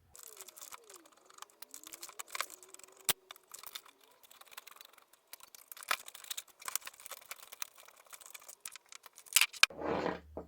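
Irregular light clicks, taps and rattles of plastic and metal parts being handled as a tower fan is taken apart to reach its motor, with a sharper cluster of clicks near the end.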